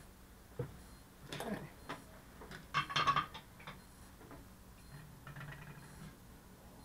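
Scattered light clicks and short rustles of small tools and parts being handled on a workbench, the loudest cluster about three seconds in, over a faint steady hum.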